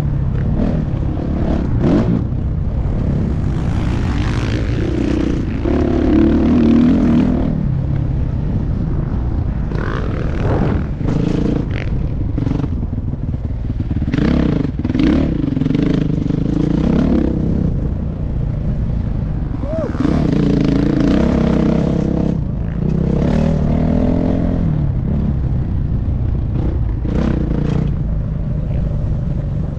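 Motocross bike engine running hard on a dirt track, its pitch rising and falling over and over as the rider opens and closes the throttle, with short knocks and clatter from the bike.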